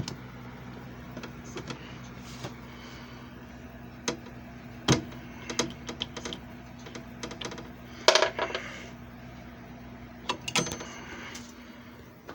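JFJ Easy Pro disc repair machine's motor running with a steady hum, which stops near the end, while scattered sharp clicks and knocks sound over it, loudest a cluster about eight seconds in.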